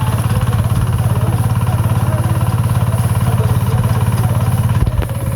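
Combine harvester engine running steadily with a fast, even throb, dipping briefly near the end.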